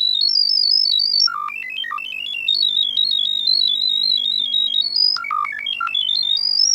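A high, thin electronic melody of quick stepping single notes, climbing and falling in fast runs.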